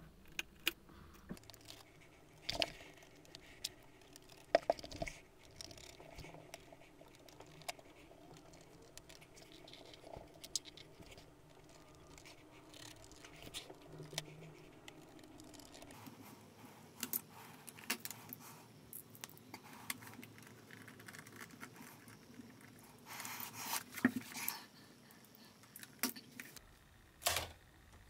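Faint scattered clicks and light metallic scrapes of a small screwdriver turning out the laptop's heatsink screws, with a denser run of louder clicks a few seconds before the end.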